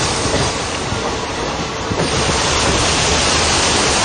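Loud, steady rushing noise with no distinct tones, easing a little from about half a second to two seconds in.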